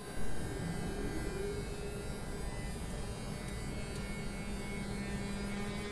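Siemens Vectron electric locomotive humming steadily, with an electrical whine that rises slowly in pitch as its traction equipment powers up to start the freight train. There is a brief louder noise at the very start.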